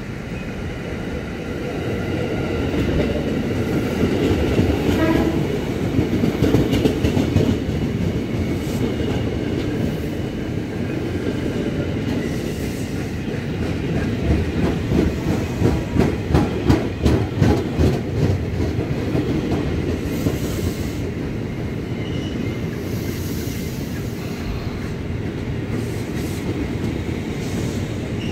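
A KRL Commuter Line electric train approaches and passes close by, its running noise building over the first few seconds with a thin high whine. In the middle, its wheels beat out a regular clickety-clack over the rail joints.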